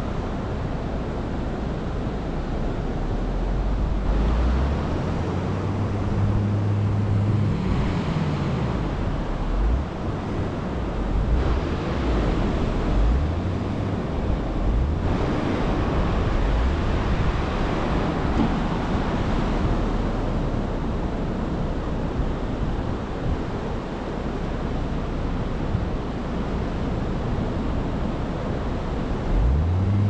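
Ocean surf and wind on the microphone, with a vehicle engine running at low revs and shifting in pitch through the first half, fading under the surf after that.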